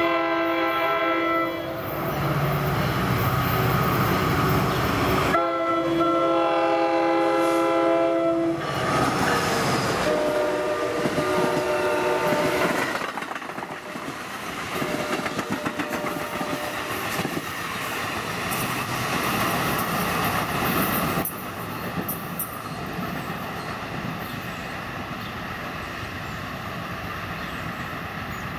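NJ Transit locomotive's Nathan K5LA air horn sounding a short blast, then a long blast of about three seconds, as the train approaches. The train of MultiLevel coaches then runs past with loud wheel-and-rail noise, which drops off as it draws away.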